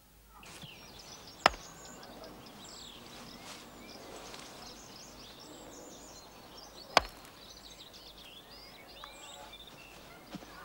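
Two sharp wooden clacks of a croquet mallet striking a ball, about five and a half seconds apart, with small birds chirping throughout.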